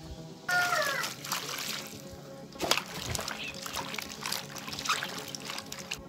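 Background music, with water splashing and sloshing as a hand moves cut matoke (green cooking banana) pieces around in a metal basin. The splashing starts suddenly about half a second in and comes in several sharp strikes.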